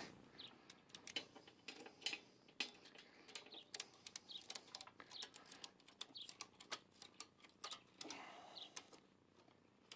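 Near silence with faint, irregular clicks and ticks.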